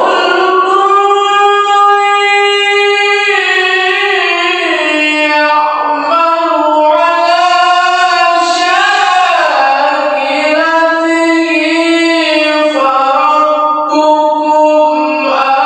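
Quran recitation in the melodic tilawah style: a single high voice holds long notes that bend and slide between pitches, with short breaths between phrases.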